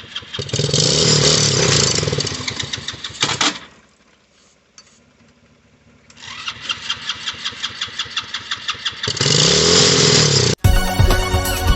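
Electric starter cranking a kids' 110cc ATV engine that won't start, in two long attempts with a quiet pause of about two seconds between them, the second one turning harder near the end. Music cuts in abruptly near the end.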